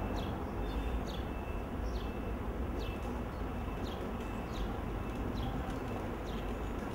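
Steady low background rumble with a short, high chirp repeating about once a second.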